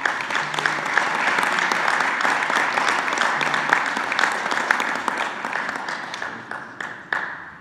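Audience applauding, a dense steady clapping that gradually dies away near the end.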